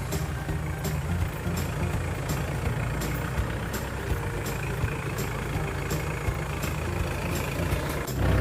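A motor vehicle's engine runs steadily with a low drone. A light regular ticking comes roughly every two-thirds of a second.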